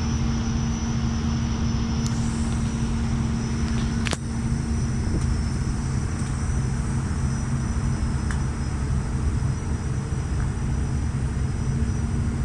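Steady low engine rumble with a constant hum, broken by one sharp click about four seconds in, after which the hum is softer.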